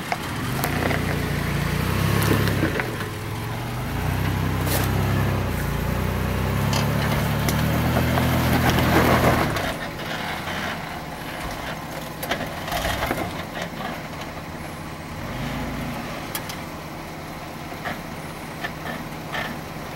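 An off-road SUV's 3.0-litre V6 engine working under load as it crawls over rocks, the revs climbing for several seconds and then dropping back sharply about halfway through, with a brief rev again later. Scattered crunches and knocks of the tyres and body on rock.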